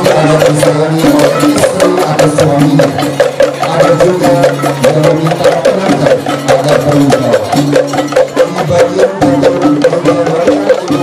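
Balinese baleganjur gamelan music, the marching percussion ensemble of an ogoh-ogoh procession: fast, dense metallic strikes over sustained low pitched tones.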